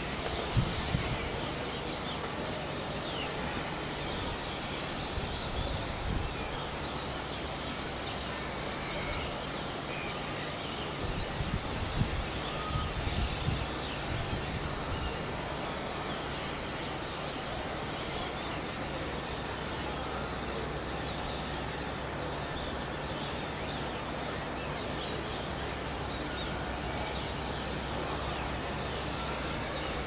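A large flock of small birds calling overhead: many overlapping short chirps and twitters run on without a break. A steady low hum of city traffic lies beneath them, with a few low bumps about twelve seconds in.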